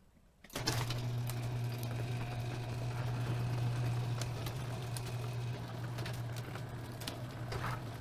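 Electric garage door opener raising a panelled sectional garage door: a steady motor hum starting about half a second in, with scattered clicks from the door's hinges and rollers.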